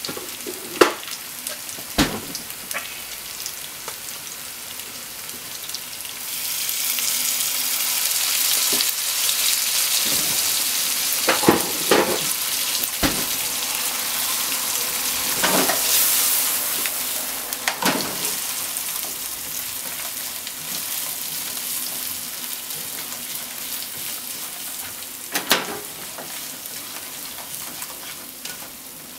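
Shrimp and potato pieces sizzling in sauce in a frying pan while being stirred with wooden cooking chopsticks, which knock against the pan now and then. The sizzle swells about six seconds in and eases off toward the end.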